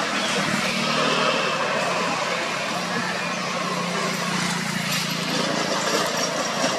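A motor vehicle's engine running with a steady low hum, over a broad background hiss.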